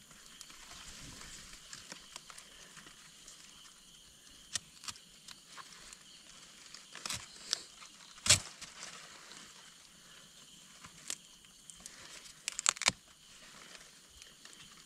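A knife slitting the fibrous leaf sheath of a young areca palm, heard as scattered sharp snaps and crackles of tearing plant tissue with some leaf rustle. The loudest snap comes about eight seconds in and a quick cluster comes near the end. The cut is made to free the new leaf of a palm whose crown is choked.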